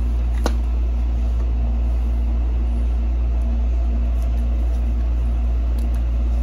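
Steady low hum, like machinery running, with a light click about half a second in.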